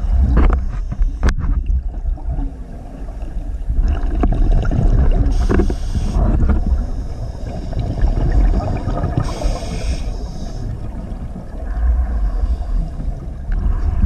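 Underwater camera audio: a muffled low rumble of moving water against the camera housing. Two brief hisses come about four seconds apart, near the middle and again about two thirds of the way in.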